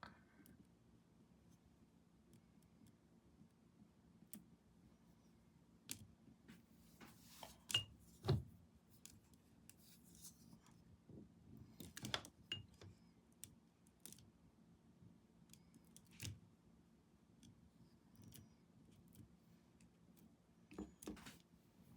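Near silence with scattered short clicks and knocks from small objects being handled, the loudest pair about eight seconds in and another cluster about twelve seconds in.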